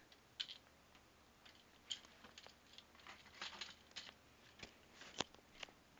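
Faint handling noises: scattered small clicks and rustles over a quiet room, with a sharper click about five seconds in.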